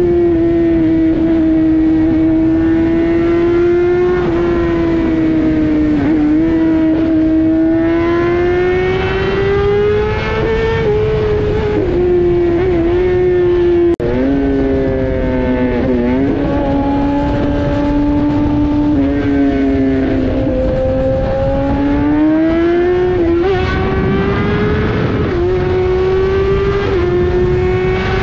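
Kawasaki Ninja ZX-10R's inline-four engine running under way, heard from the rider's seat. Its pitch climbs and falls gradually with the throttle, dips briefly several times, and sits lower for a few seconds about midway. A steady low rush of wind and road noise runs underneath.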